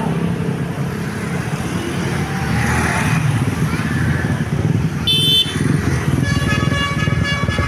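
Bus engine running close by, with a short horn toot about five seconds in; from about six seconds a Basuri telolet horn, a multi-tone bus horn, starts playing its melody of several tones at once.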